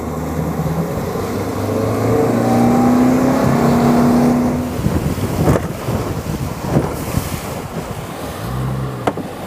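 Boat's outboard motor revving up, its pitch rising as the boat gets under way, then running at speed with wind rushing over the microphone and a few thumps of the hull hitting the chop.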